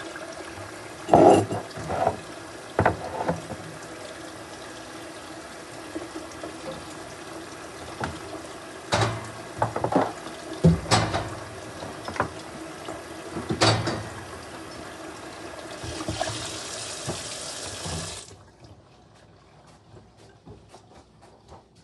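Water running steadily from a tap, with several sharp knocks and clatters over it; the flow brightens just before it is shut off suddenly about 18 seconds in.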